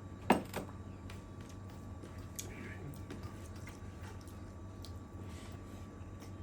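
Close-up eating sounds of chicken curry and rice: a sharp click about a third of a second in, then scattered soft wet clicks and smacks of chewing.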